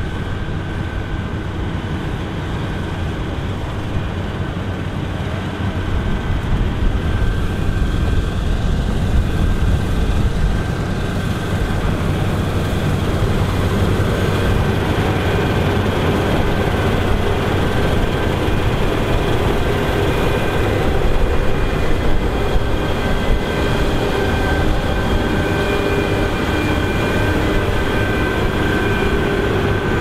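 Claas Lexion 8900 combine harvester running under load while harvesting barley: a steady machinery drone with a constant whine over it, growing louder about six seconds in.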